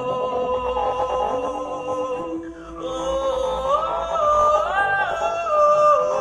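Live music: a woman singing a melody of long held notes into a microphone over double bass accompaniment, the line climbing to its highest notes partway through and falling back near the end.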